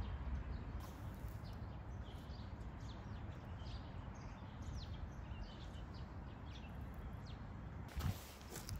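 Small birds chirping, many short calls one after another, faint over a steady low rumble. A brief louder rustling noise comes near the end.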